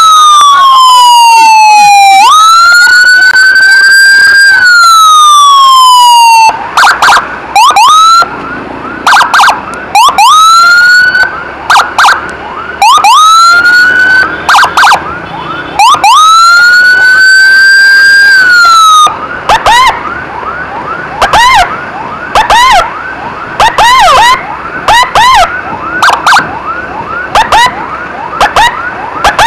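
Electronic emergency siren switched between patterns. It plays a slow wail that climbs and falls in pitch, changes about six seconds in to short rising whoops with brief gaps, returns to the long wail around the middle, then runs quick chirps to the end.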